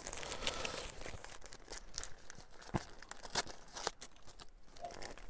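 Subway sandwich's paper wrapper crinkling and rustling as it is handled and opened by hand, in a run of irregular sharp crackles.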